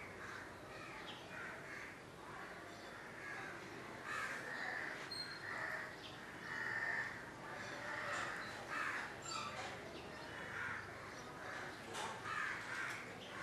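Crows cawing repeatedly and faintly, one call after another, over quiet room tone.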